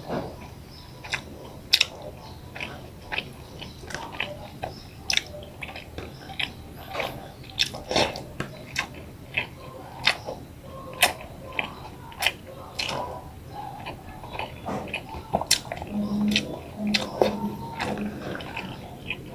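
A person chewing and eating rice with boiled eggplant and vegetables: irregular mouth clicks and smacks throughout, with a few short low hums about three-quarters of the way through.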